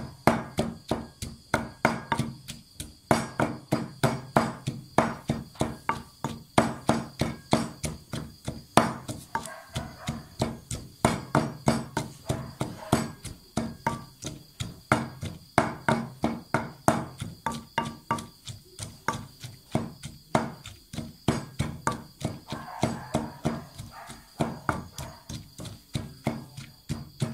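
Wooden pestle pounding green chillies and shallots in an earthenware mortar, a steady rhythm of about two to three strikes a second.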